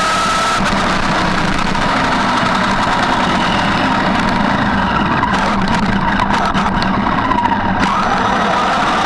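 Electric drive motor and gears of a Traxxas E-Maxx RC monster truck whining, the pitch sliding up and down with the throttle over a steady hum and rough running noise. A run of sharp ticks and crackles comes in the middle.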